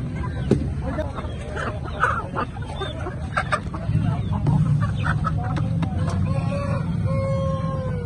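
Caged chickens and roosters clucking and calling in many short calls, with a rooster crowing in one long drawn-out call near the end. A steady low rumble underlies it.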